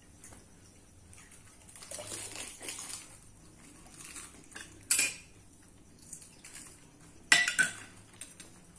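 Steel spoons clinking and scraping against bowls and plates while golgappa shells are filled, with two sharp clinks about five and seven seconds in.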